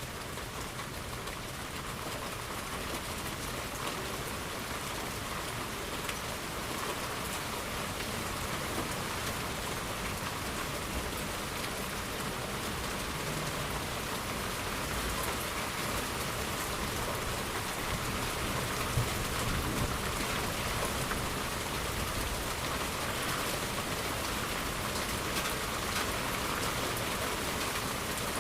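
Steady rain falling, growing slightly louder, with a faint low rumble of thunder partway through.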